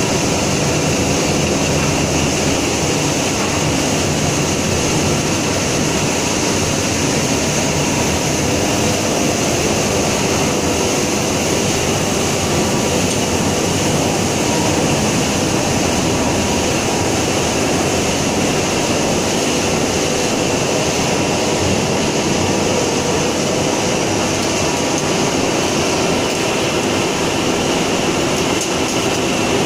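Organic fertilizer pellet production line machinery running: a loud, steady industrial din with constant humming tones underneath.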